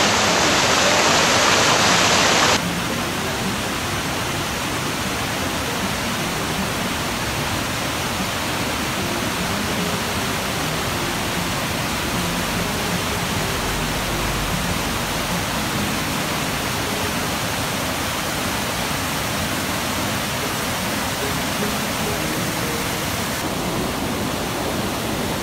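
Rushing river water pouring through a bamboo fish weir, a steady, even roar. About two and a half seconds in, a louder, brighter rush cuts off abruptly and the sound drops to a slightly quieter, steady rush.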